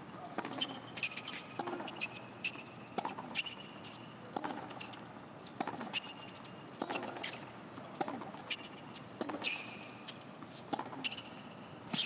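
Tennis rally on a hard court: a string of sharp racket-on-ball strikes and ball bounces, about one every second, with sneakers squeaking briefly on the court between them.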